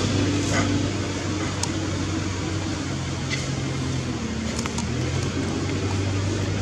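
Steady low hum of a running motor, with a few faint clicks.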